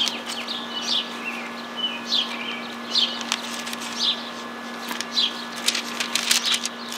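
Birds chirping outdoors in short calls about once a second, with the rustle of Bible pages being leafed through and a faint steady hum underneath.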